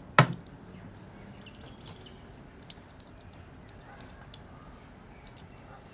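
One sharp knock just after the start, then a few light clicks and taps as the metal Solex 34 PICT-3 carburettor body is handled.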